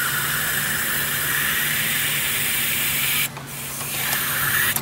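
Aerosol spray can hissing as it is sprayed down a spark plug hole, a long steady spray that stops about three seconds in, followed by a second, shorter spray near the end.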